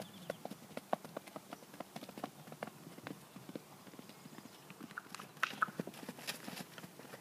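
Hoofbeats of a young Icelandic mare cantering loose over grass turf: a quick, uneven run of dull thuds, louder as she passes close about five seconds in.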